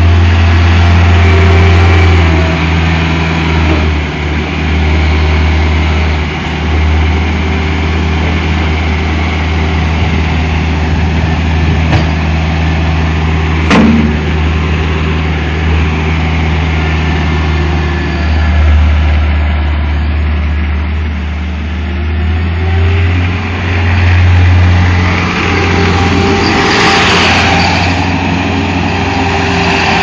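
Skid steer loader's engine running steadily, its low hum swelling and easing as the load changes. A single sharp click sounds about halfway through, and a rush of noise rises and fades near the end.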